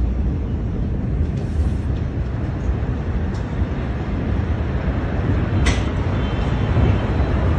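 Steady, dense low rumbling noise, with one brief sharp crack about three-quarters of the way through.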